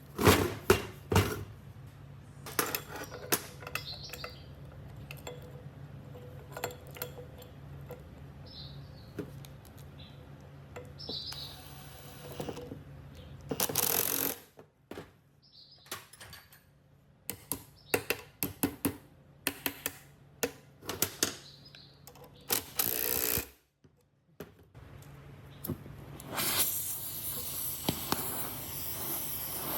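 Metal parts and hand tools clinking and knocking in a run of irregular sharp clicks, with two brief rushes of noise and a steady spraying hiss starting near the end.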